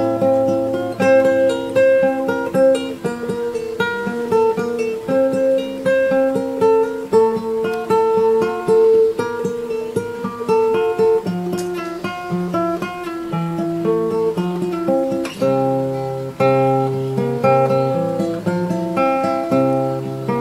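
Sundanese degung instrumental music: a melody of plucked and struck pitched notes over a lower bass line.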